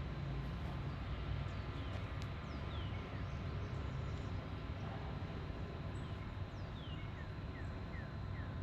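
A bird giving short, high, falling chirps, a few about two and a half seconds in and a quick series near the end, over a steady background hum and hiss.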